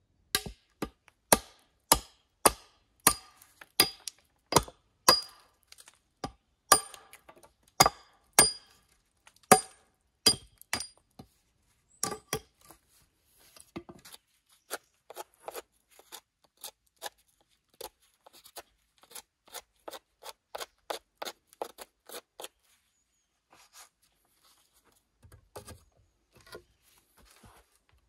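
Sharp, evenly spaced knocks of a tool striking wood, about two a second and loud for the first ten seconds. Then lighter and looser knocks, with only a few scattered ones near the end.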